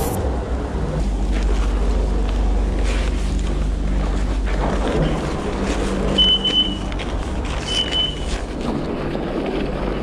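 Chairlift running through its top terminal: a steady low mechanical rumble. Two short high beeps sound about six and eight seconds in.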